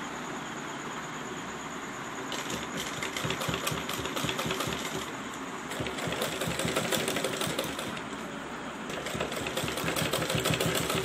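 Sewing machine stitching lace onto a blouse's back neck: a steady hum for about two seconds, then quick runs of rapid, even needle clicks. The stitching stops briefly about five and eight seconds in.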